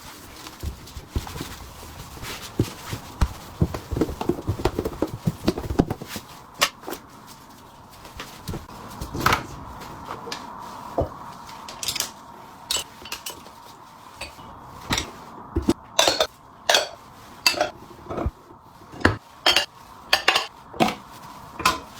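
Pots, bowls and ladles clattering and clinking as they are handled: a dense run of knocks in the first few seconds, then sharper clinks spaced out, bunching up near the end.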